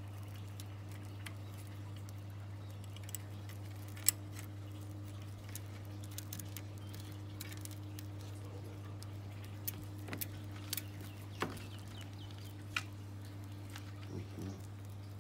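Loose mountain-bike chain being handled and threaded through the rear derailleur: scattered light metallic clicks and jingles of the chain links, over a steady low hum.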